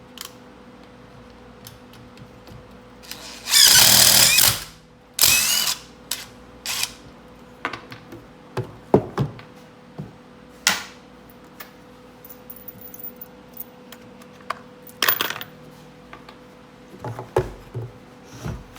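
A power drill run in several short bursts, the longest about four seconds in with its motor whine rising, among clicks and clatter of screws and parts being handled.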